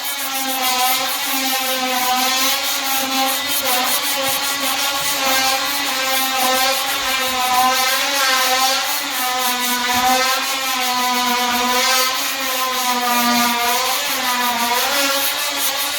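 A small motor running steadily with a slightly wavering whine, and a rapid rasping, scraping sound over it.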